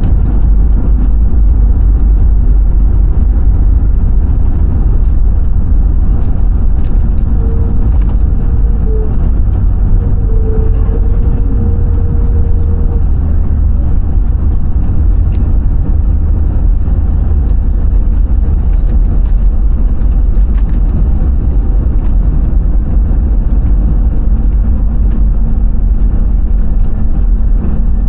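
Steady, loud roar of an airliner heard from inside the cabin: engine and airflow noise, deep and rumbling, with a faint steady whine for a few seconds partway through.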